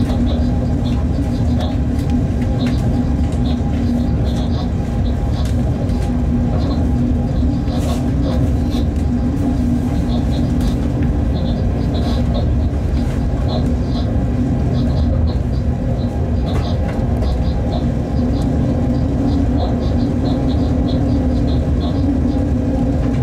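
Freight train heard from inside the locomotive cab while running along the line: a steady, loud rumble with a constant hum, and quick high ticks in clusters over it.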